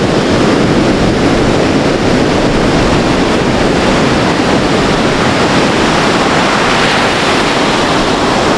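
Pacific Ocean surf breaking on a sandy beach and washing up the shore in foam: a loud, steady rush of water.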